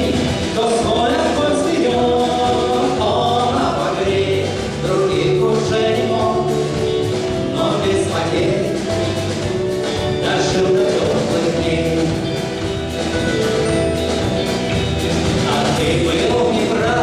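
Music with a choir singing over a steady beat.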